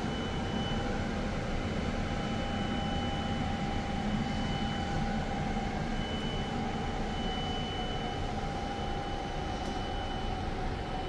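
Steady hum and rush of air-conditioning and cooling fans inside a powered-up Boeing 787 flight deck, with a low rumble and two steady whining tones, one high and one lower.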